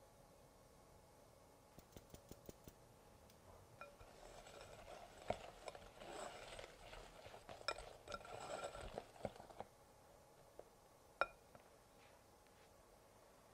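A wire whisk stirring a thick custard base in a glass mixing bowl, scraping and clinking against the glass for about six seconds from around four seconds in. Before it come a few light ticks from a mesh sieve of cornstarch being shaken, and near the end a single sharp click.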